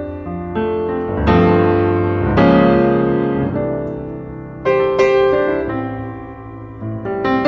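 Background piano music: notes and chords are struck every second or two and left to ring and fade.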